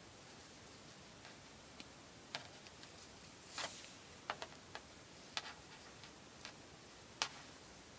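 Hands handling knotting cord: scattered faint clicks and ticks of fingers and cord, with a short brushing swish of a cord being drawn through a little past the middle, over a steady faint hiss. The sharpest click comes near the end.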